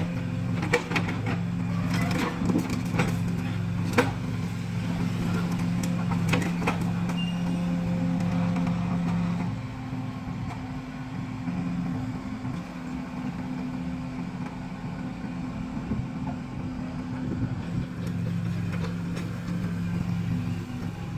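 Excavator diesel engine running steadily while it dredges the drain, with scattered knocks and clanks. The engine note drops and quietens about halfway through.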